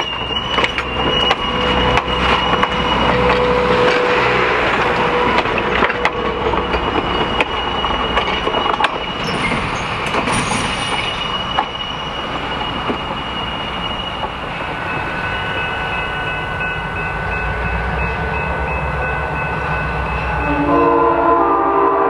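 Passenger coaches rolling past, wheels clicking over the rail joints with a thin steady high whine, then a steady rumble. Near the end, the five-chime Nathan Airchime M5 air horn of GP7 #573 starts to blow.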